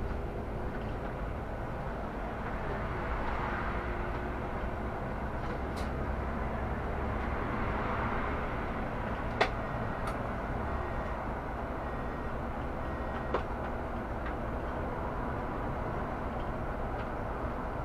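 Solaris Urbino 18 articulated city bus running, a steady rumble of engine and road noise. Two sharp clicks or knocks sound over it, the louder one about halfway through.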